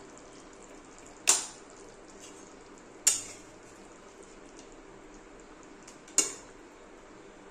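A metal spatula clanks three times against a metal kadai while stirring a thick chicken and potato curry, each strike sharp with a short ring, over the soft steady sound of the simmering gravy.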